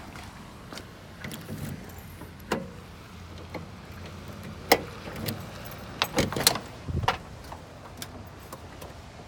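Keys jangling, with scattered clicks and knocks over a low steady hum.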